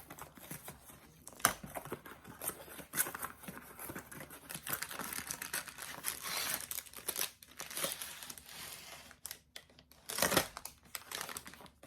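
Packaging crinkling and tearing as a parcel is unwrapped: irregular rustles and snaps throughout, with a louder burst of crackling about 10 seconds in.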